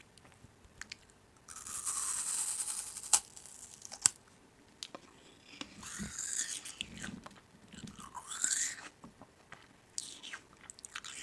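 Crisp food crunching close to the microphone, in several bursts with a couple of sharp clicks between them.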